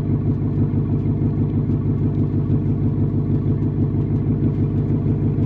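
A 2024 Mustang GT's 5.0-litre V8 idling steadily through its active-valve exhaust with a Steeda H-pipe.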